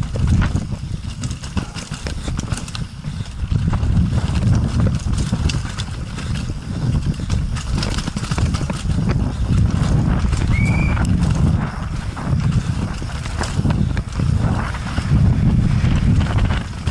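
Downhill mountain bike ridden fast over rocks and roots, heard from a helmet-mounted camera: a heavy wind rumble with the clatter and rattle of the bike's tyres, chain and suspension over the rough ground. There is a short high squeak about ten and a half seconds in.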